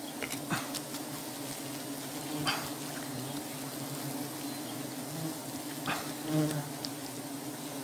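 A colony of wild honeybees buzzing steadily around their exposed comb, with a few brief rustles scattered through.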